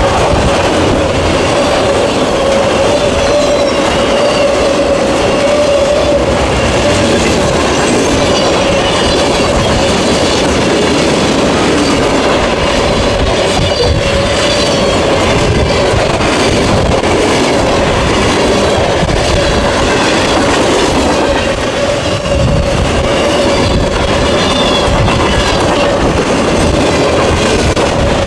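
Loud freight train rolling past at speed, its steel wheels clacking on the rails, with a steady whine running underneath.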